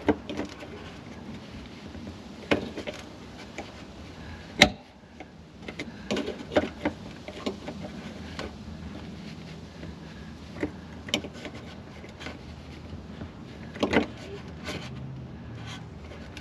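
Needle-nose pliers being used to tighten a fitting: scattered clicks and small knocks, the sharpest about four and a half seconds in, with more around the middle and near the end.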